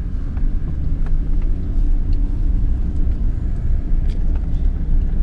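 Vehicle driving along at road speed: a steady low rumble of engine and road noise, heard from inside the cab.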